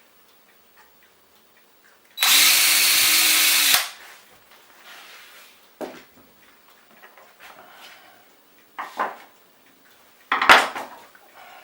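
Power drill boring a small pilot hole for a number 6 screw in oak, running steadily for about a second and a half. After it come three short, sharp sounds, the loudest near the end.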